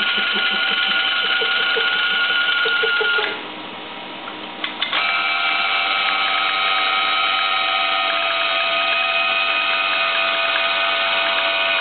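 Abnormal noise from a Noran Voyager X-ray detector: a steady whine of several high tones. About three seconds in it drops away, a couple of clicks follow, and it starts again about five seconds in with a changed set of tones.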